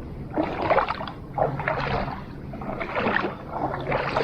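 Paddle strokes in the water from a stand-up paddle board: four splashy swishes, about a second and a quarter apart, over a faint low steady hum.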